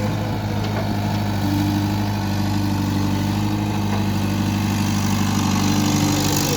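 Heavy diesel engine of earthmoving or farm machinery running steadily, with a steady higher tone joining in about one and a half seconds in.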